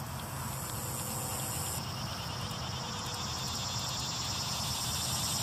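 Insects trilling steadily in the background: a fine, fast, even pulsing high in pitch over a constant low hum.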